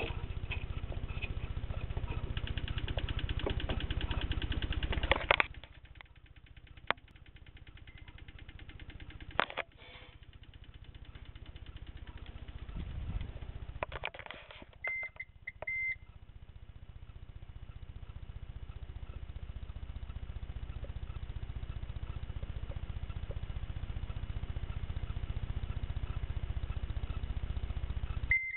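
Rapid, continuous clicking from the Toyota Corolla All-Trac's electrical system with the diagnostic connector jumpered at T and E1. The owner thinks it comes from the starter, which will not turn the engine over. A few louder single clicks break in, and a short high beep sounds twice around the middle and once at the end.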